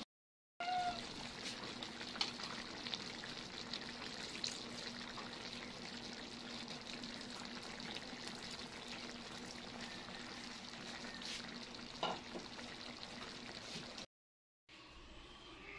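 Pot of chicken feet kaldereta simmering, a steady sizzle with small crackles and pops over a low steady hum. The sound drops out briefly just after the start and again near the end.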